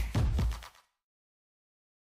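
Electronic dance remix with heavy bass beats, fading out fast and stopping under a second in, then silence.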